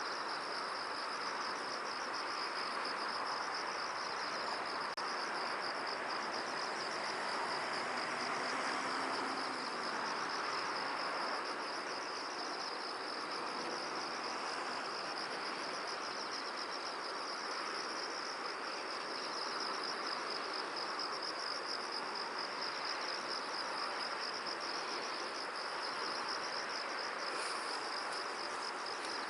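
A steady, rapidly pulsing high-pitched insect trill that does not let up, over an even rustling hiss of wind in the field.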